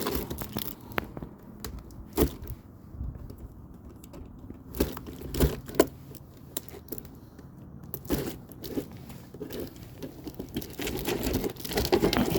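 Cardboard box and packaging being handled and pulled open: tearing and crinkling with scattered knocks, the sharpest a little over two seconds in and twice about five and a half seconds in.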